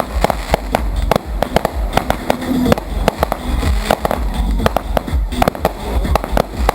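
Fireworks going off: rapid, irregular crackling bangs, several a second, over a steady low rumble.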